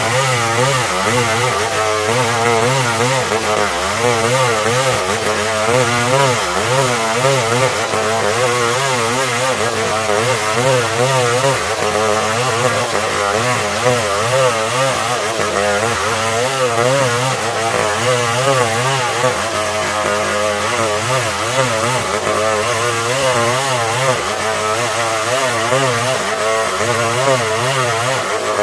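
Stihl 070 two-stroke chainsaw running at high speed, sawing timber into boards. Its pitch wavers up and down continuously as the engine speed shifts under load.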